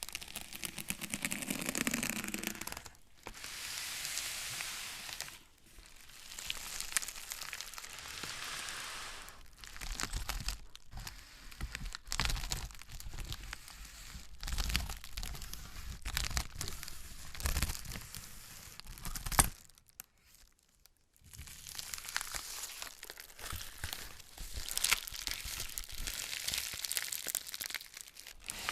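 Plastic shrink wrap on a product box being torn off and crinkled in hand, in uneven stretches of rustling and crackling with a short pause about two-thirds of the way through, along with dull knocks of the box being handled.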